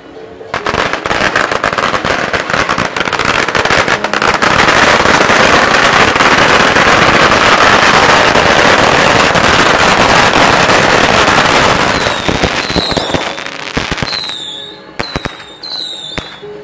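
A long string of firecrackers going off in a dense, continuous crackle, loudest in the middle and thinning to scattered single pops near the end, with a few short high chirps among the last pops.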